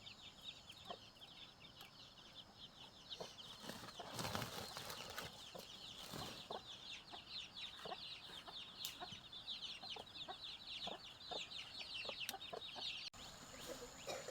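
Faint, busy chirping of birds: many quick, high, falling peeps overlapping one another, with scattered light clicks and knocks.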